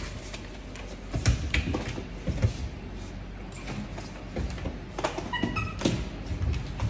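Irregular knocks and thumps on kitchen cabinet doors as a baby monkey pushes at and climbs them, with a brief squeak a little past halfway.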